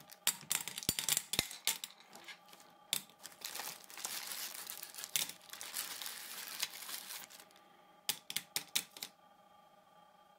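Glass marbles dropped into a glass champagne flute, clinking against the glass and against the marbles already inside. The clicks come in a quick, irregular run, thickest in the middle, and stop about nine seconds in.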